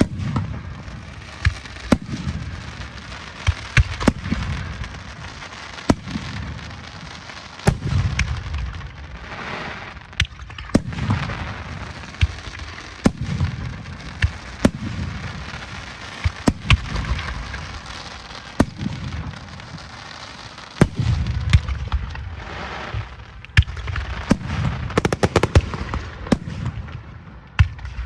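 Fireworks going off: deep booms every second or two, mixed with sharp cracks, and a fast run of crackling bangs near the end.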